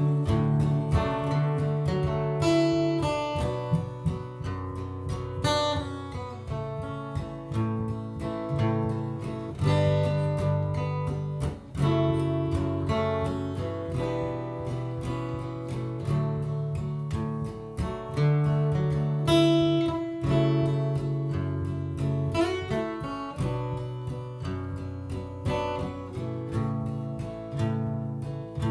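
Acoustic guitar playing an instrumental break in a sad and somber song, strummed chords with plucked notes and no singing.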